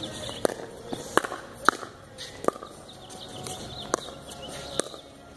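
Pickleball rally: paddles pop against the plastic ball about six times, at uneven gaps of half a second to a second and a half, the back-and-forth of a volley or dink exchange.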